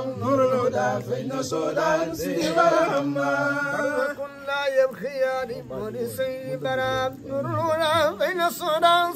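Men chanting an Arabic Mawlid poem a cappella, in long melismatic held notes whose pitch wavers and ornaments. There is no instrumental accompaniment.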